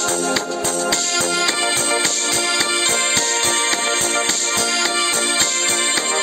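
Background music: a keyboard melody over a steady, quick beat.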